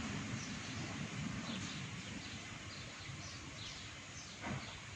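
Faint bird chirps, a series of short falling notes repeating every half second or so, over quiet outdoor ambience.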